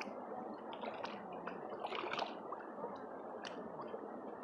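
Muddy paddy water sloshing and squelching as a person wades through a flooded rice field and pushes rice seedlings into the mud by hand, with a few sharper splashes.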